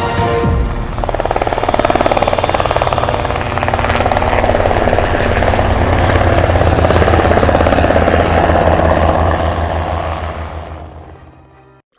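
Helicopter rotor sound, the blades chopping rapidly and steadily over a low engine hum, fading out over the last two seconds.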